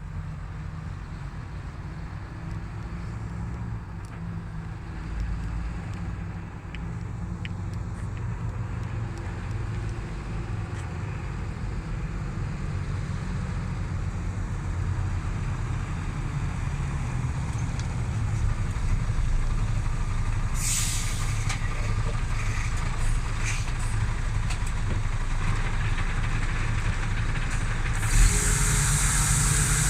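Heavy truck engine running, its low rumble growing gradually louder, with a sudden rise of hiss near the end.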